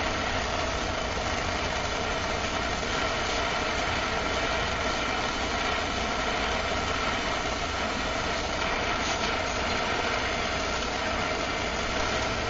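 Hand-held MAPP gas torch burning with a steady roar, its flame heating the spine of a forged steel knife blade for a differential temper.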